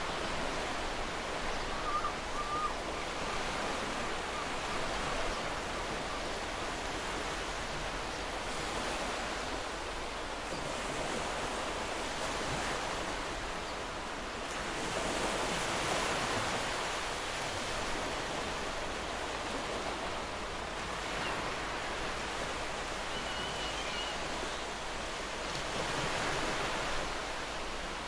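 Gentle ocean waves washing onto the shore in a steady rush, swelling louder about halfway through and again near the end. Faint bird calls come through twice, briefly.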